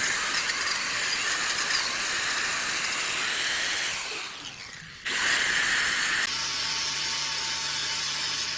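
Angle grinder grinding a welded steel joint clean, a steady hissing grind. It fades out about four seconds in and starts again sharply a second later, with a low motor hum under it.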